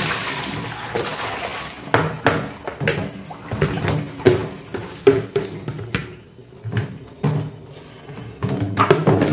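Water sloshing and splashing in a plastic basin as leafy greens are swirled and rinsed by hand, then the water and greens are tipped out into a plastic colander. Background music plays throughout.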